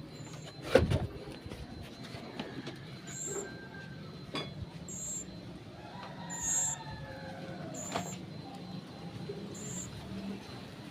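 A decu (pied bushchat) giving short, very high-pitched chirps, about five of them spaced a second or two apart. There is a single loud knock about a second in.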